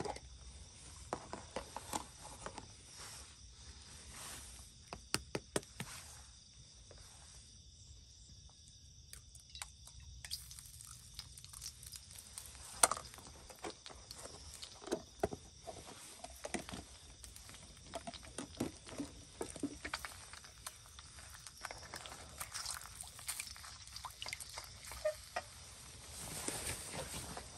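Scattered clicks, taps and scrapes of cooking with a steel wok on a portable gas stove: an egg goes into the wok and is pushed about with a spatula, with one sharp tap about halfway. A steady chorus of night insects runs underneath.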